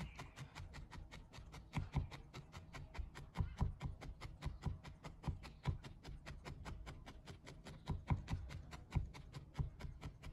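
Felting needles stabbing rapidly and repeatedly into loose wool over a felting base, a quick even run of soft clicks at about five or six stabs a second. The wool is being felted into a flat round base disc.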